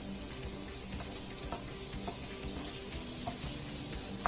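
Oil sizzling steadily in a frying pan as spring onions are sautéed with shallots and garlic, with a few light clicks.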